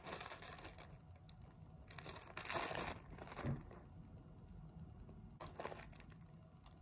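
Plastic gift packaging crinkling as it is handled: clear plastic sleeves and a foil wrapper rustle in three short bursts, the loudest about two and a half seconds in.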